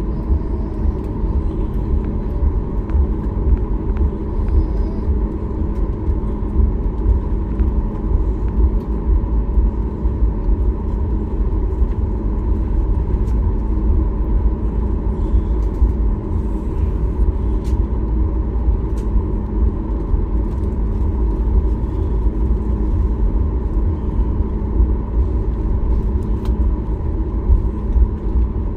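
Steady low rumble inside the cabin of a Boeing 737 MAX 8, with a faint steady hum over it and a few light ticks.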